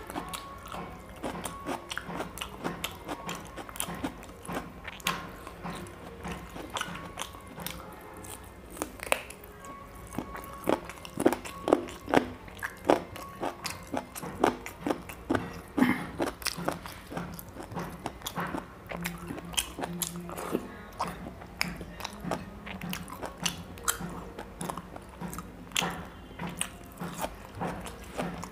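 Close-miked mouth sounds of a person eating chicken curry and rice by hand: chewing, smacking and many quick clicks, with a few louder crunches about halfway through.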